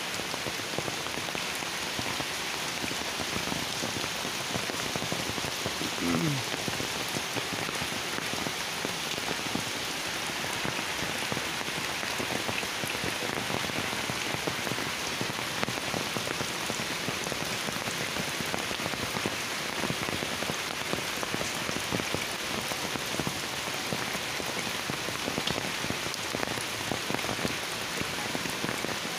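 Heavy rain falling steadily on foliage and ground, a dense continuous hiss, with drops striking the umbrella just overhead.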